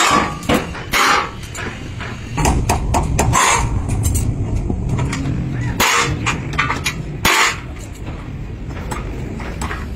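Hammers striking steel bar and angle iron being shaped on a wooden stump anvil: several sharp metal blows at irregular intervals, over steady low background noise.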